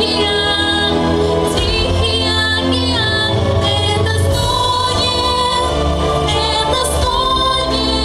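Female singers performing a song with a recorded musical backing and a steady bass line.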